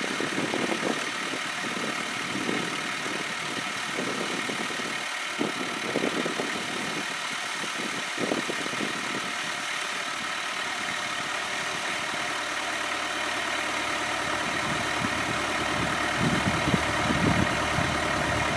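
Kubota B7800 compact diesel tractor engine running steadily at idle, with uneven low rumbling over it.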